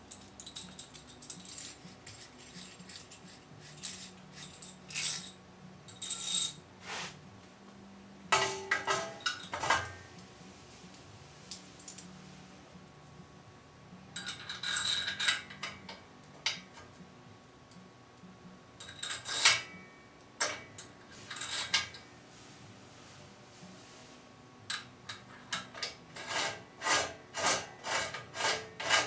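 Metal clinks and scrapes of a bicycle bottom bracket chamfer tool being fitted through a steel bottom bracket shell: the threaded rod, coil springs and nuts knock and rub as it goes together. Near the end comes a run of regular clicks, about two a second, as the end nut is turned down to put tension on the spring.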